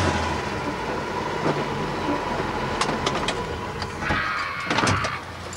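Engine and road noise heard from inside the cabin of a Mk1 Ford Escort on the move, with a few sharp clicks and rattles about three seconds in and again near the end.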